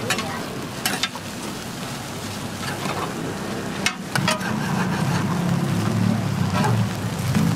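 Egg toast sizzling as it fries on a hot steel griddle tray, a steady crackling hiss. A few sharp clicks of utensils against the metal, and a low rumble rising in the second half.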